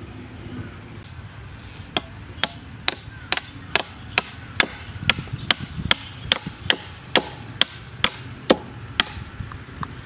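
A chopping blade striking the trunk of a coconut palm: steady, sharp chops about two a second, starting about two seconds in and stopping shortly before the end.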